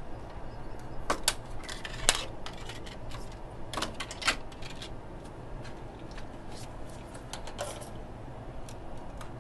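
Stiff paper template strips being cut with a utility knife and handled: crackling, papery clicks in bursts about a second in and again around four seconds, with lighter rustles later.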